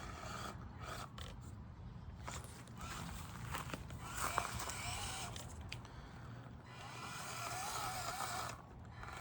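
Small 050-size 66-turn brushed motor and gear train of an Axial SCX24 Deadbolt RC crawler whirring at crawling speed, the whine wavering with the throttle in two stretches, with scrapes and clicks from the chassis and tyres. The drivetrain is making a sound the driver doesn't like.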